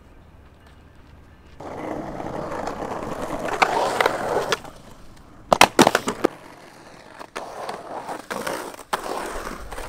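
Skateboard wheels rolling on a concrete bowl, starting about a second and a half in. A little past the middle come several loud, sharp clacks of the board against the concrete, the loudest sounds here, and then the rolling goes on.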